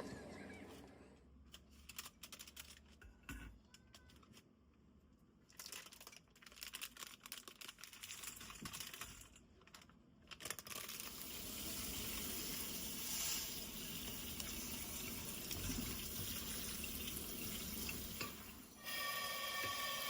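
Water running from a tap into a sink, a steady rush that starts about halfway through after a stretch of light clicks and clatter. A ringing tone joins it near the end.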